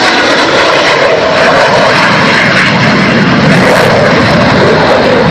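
Lockheed F-104 Starfighter's single J79 turbojet, very loud and steady as the jet makes a low pass over the airfield.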